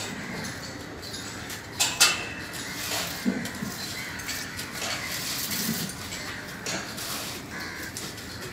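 Metal shovels and hand tools scraping and clinking against wet cement concrete as it is spread over a floor. Irregular knocks and scrapes, the loudest about two seconds in.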